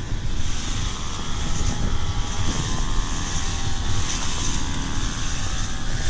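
Small engine of a motorised garden trimmer running steadily, under wind rumbling on the microphone.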